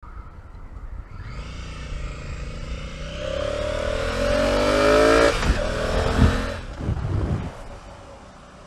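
Honda Africa Twin CRF1000L's parallel-twin engine accelerating hard, its pitch climbing steadily for about four seconds, then dropping suddenly at a gear change and climbing again. The sound then fades away.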